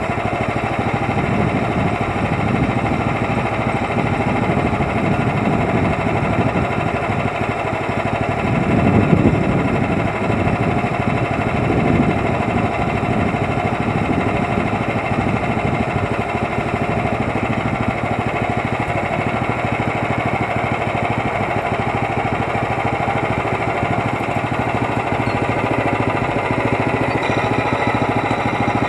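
Gas engine of a portable bandsaw sawmill running steadily, swelling louder briefly about nine seconds in and again about twelve seconds in.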